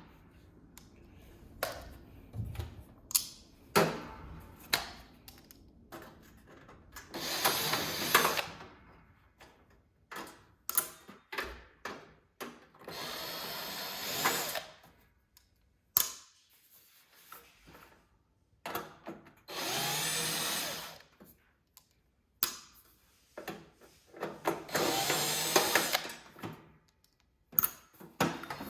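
A power drill/driver runs in four spurts of a second or two each, backing screws out of a metal space heater's back panel. Short clicks and knocks of handling the screws and the metal case come in between.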